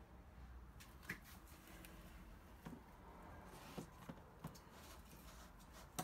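Near silence with faint handling noises: a few soft clicks and rustles of cardboard and paper money being handled.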